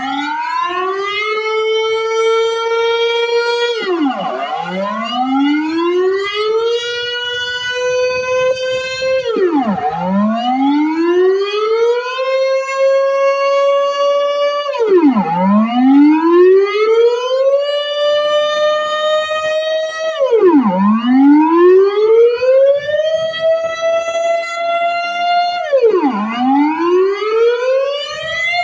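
Dutch civil defence air raid siren sounding a wailing warning signal during a test. In each cycle the pitch climbs steeply, levels off, then drops sharply, repeating about every five and a half seconds, five times over, each level stretch a little higher than the last.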